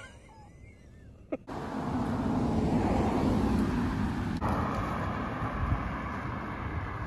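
A car driving past on a street, its tyre and engine noise swelling about two seconds in, then steady traffic noise.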